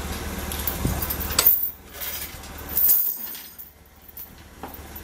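Clanks and clinks of metal on metal as a manual pallet jack is worked at the edge of the container floor, over a forklift's steel forks. A steady low engine hum runs under the first second or so, and there are two sharper strikes, about one and a half seconds apart.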